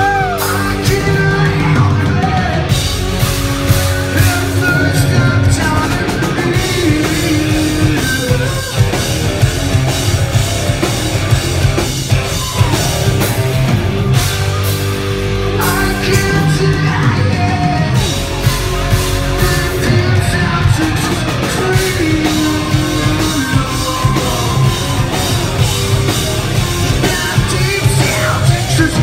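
Live hard rock band playing loud: distorted electric guitar and drum kit, with a singer belting and yelling the vocals over them.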